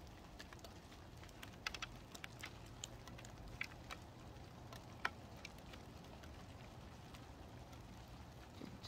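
Light rain: scattered sharp ticks of raindrops striking nearby surfaces, thickest in the first half and sparser later, over a faint steady low hum.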